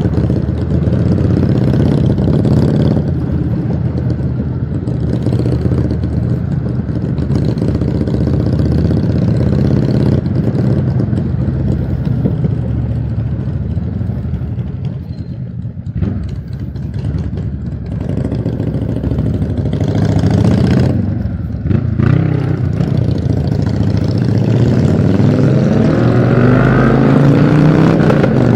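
Motorcycle engine running while riding. The note dips briefly around the middle, then rises in pitch toward the end as the bike accelerates.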